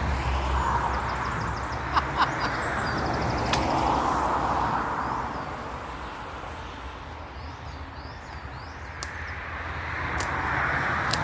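Traffic on a road: vehicles pass one after another, each a swell of tyre and engine noise that rises and fades, three in turn. Small birds chirp over it, with a couple of sharp clicks about two seconds in.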